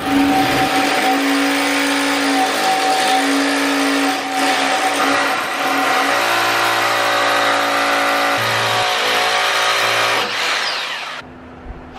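Corded electric drill running at speed as it bores into the wall, with a brief easing about four seconds in. It cuts off about eleven seconds in.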